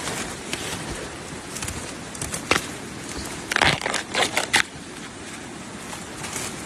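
Dry leaf litter and twigs crunching and crackling, with a few sharp crackles about two and a half seconds in and a cluster of them around four seconds in.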